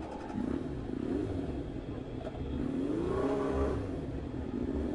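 A road vehicle's engine running in traffic over low rumbling road and wind noise. About three seconds in, the engine note rises in pitch as it accelerates, then holds briefly.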